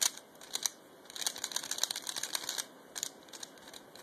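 Dayan Zhanchi 3x3 speedcube, original plastic and modded, being turned fast: quiet, soft clicking of plastic pieces in short bursts, with the longest run of turns from about one to two and a half seconds in.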